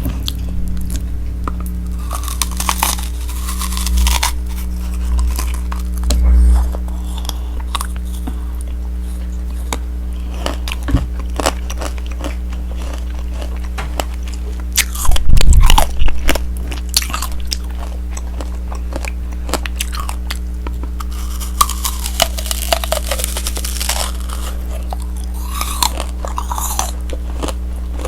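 Close-miked biting and chewing of tanghulu: the hard candied sugar shell on the fruit cracks and crunches in irregular clicks, loudest in a short burst about fifteen seconds in.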